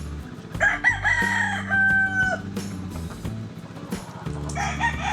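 A rooster crowing twice. The first crow comes about half a second in and ends on a long held note; the second starts near the end. Background music with steady low notes plays underneath.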